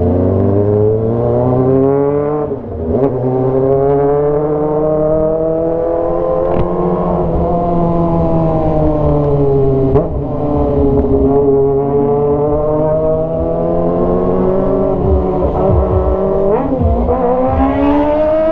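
Kawasaki ZX-25R's 249 cc inline-four engine through a straight-pipe GP exhaust, ridden through the gears. The pitch climbs as the throttle opens and sinks as it eases off, with sudden drops at gear changes, one about three seconds in and one near the end.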